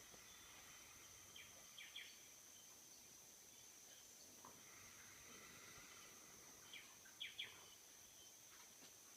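Near silence: faint room tone with a steady high hiss and a few faint, short, high squeaks in two small clusters about five seconds apart.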